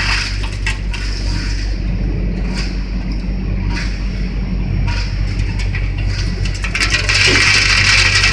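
Stainless-steel batch frying machine of a fried-bean line running: a steady low motor hum with scattered clicks and rattles from its moving parts. A louder hiss comes in near the end.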